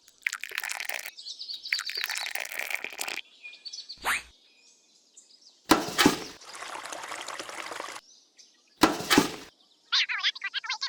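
Birds chirping, broken by a few short, abrupt bursts of rougher noise, the loudest about six and nine seconds in.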